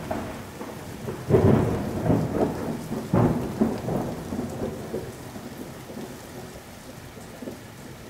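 Thunderstorm sound effect: steady rain with rolling thunder, one rumble swelling a little over a second in and another about three seconds in, then the storm fading.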